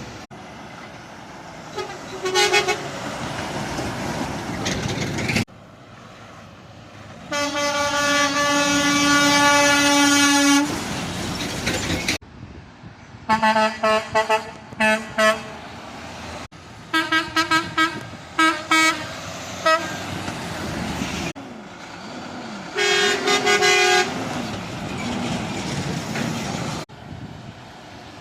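Truck air horns sounded in separate blasts: a short toot, then one long blast of about three seconds, then two runs of short rapid toots, and finally a blast of about a second. Road traffic noise runs between the blasts.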